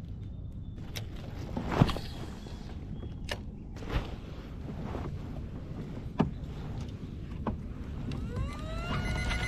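Scattered clicks and knocks of fishing gear being handled aboard a kayak, over a low steady rumble of wind on the microphone; the loudest knock comes about two seconds in. Music starts to rise in near the end.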